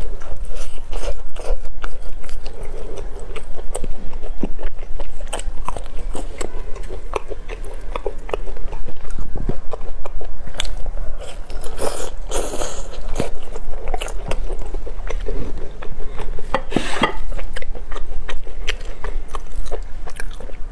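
Close-miked eating: a person biting into and chewing a glazed roast chicken drumstick, with many short sharp clicks throughout.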